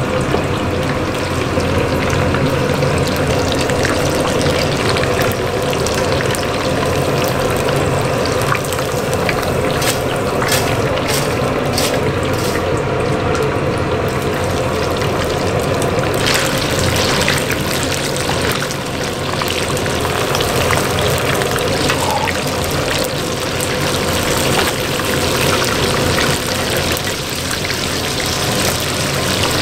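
Battered shrimp deep-frying in a wok of hot oil over a gas wok burner, the oil bubbling and sizzling steadily. The sizzle turns brighter and more crackly about sixteen seconds in.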